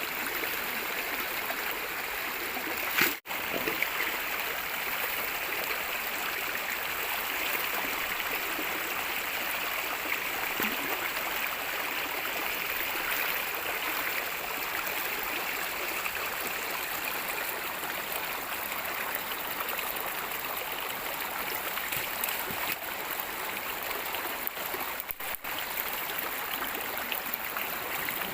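Water rushing steadily, as from a fast stream or water pouring through a pipe for irrigation, with a brief sharp break about three seconds in.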